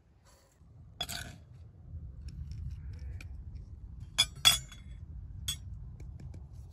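A metal spoon clinking against a cut-glass tumbler as sugar is scooped into it: a softer clink about a second in, two sharp ringing clinks in quick succession past the middle, and a lighter one a second later, over a low rumble.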